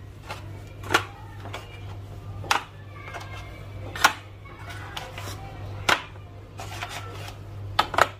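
Eggs being set one at a time into a plastic egg tray, each landing with a sharp click, about one to two seconds apart, with two clicks close together near the end. A low steady hum runs underneath.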